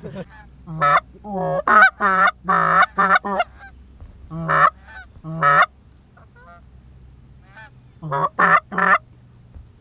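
Geese honking: quick runs of loud honks in three bunches, with a lull of about two seconds between the second and third.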